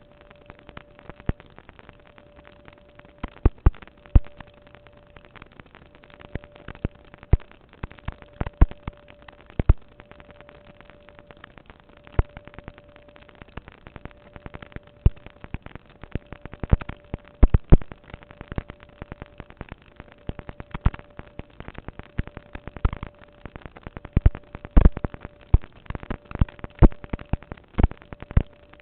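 Irregular sharp pops and clicks of unknown origin, some single and some in quick clusters, over a faint steady mid-pitched tone.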